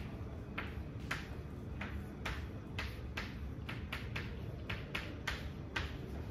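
Chalk writing on a blackboard: a quick, irregular run of sharp taps, about two or three a second, over a steady low room hum.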